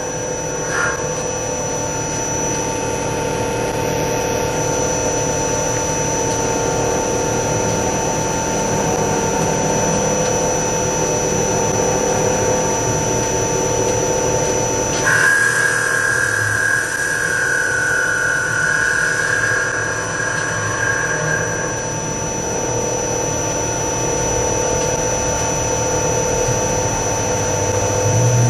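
CNC wood lathe running: the spindle spins a wooden cup blank while a boring tool cuts out its inside, a steady machine hum and whine with the hiss of the cut. The sound shifts abruptly about halfway through, with a higher whine for several seconds.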